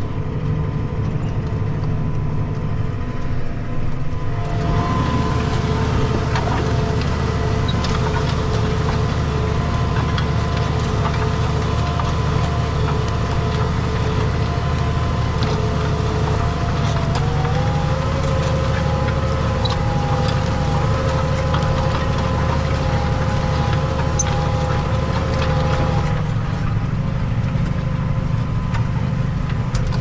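Tractor diesel engine running steadily under load while pulling a mounted reversible plough through the soil, with a steady whine that steps up slightly in pitch just past halfway.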